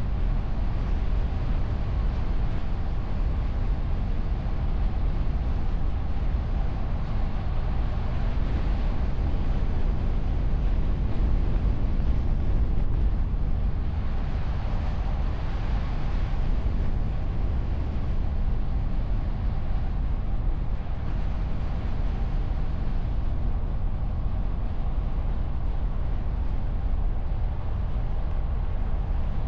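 A car driving along an open road, heard from a microphone on the bonnet behind a wind muff: a steady low rumble of tyres, engine and air rushing past. It swells a little partway through, then settles back.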